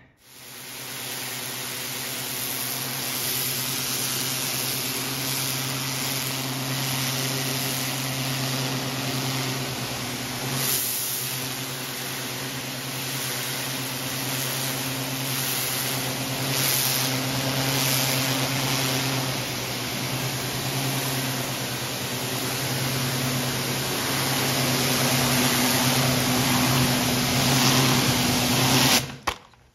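Pressure washer running steadily, its pump humming under the hiss of the water jet blasting wet muck off a shed floor; it cuts off suddenly near the end.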